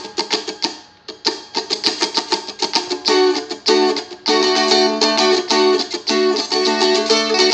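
Seagull Merlin strumstick strummed in a quick, funky rhythm on a high-voiced D chord. The first strokes are thin and choppy, and from about three seconds in the chords ring out full. The player keeps the strum going with his fingers resting on the strings and presses them down only where the notes fall.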